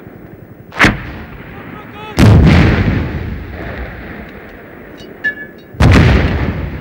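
84 mm Carl Gustaf recoilless rifle firing HE 441B high-explosive rounds: two loud shots about three and a half seconds apart, each trailing off in a long rolling echo, with a shorter, sharper crack about a second in.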